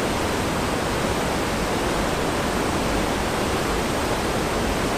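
Steady rushing of churning white water in a cruise ship's wake, stirred up by its azipod propellers.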